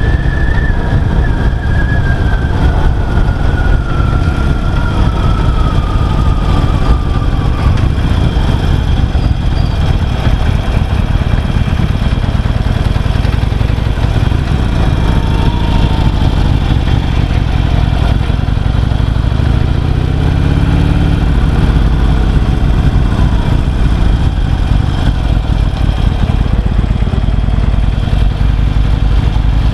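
Harley-Davidson Sportster XL883C's 883 cc V-twin running on the road through standard pipes, under heavy wind rush on the microphone. The engine note rises as the bike accelerates about two-thirds of the way through.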